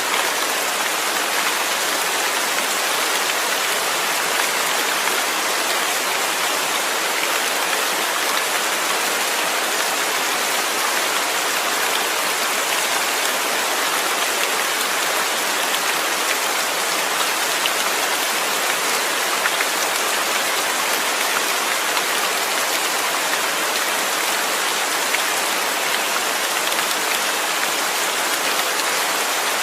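Steady rain falling: an even hiss of many drops that holds unchanged throughout.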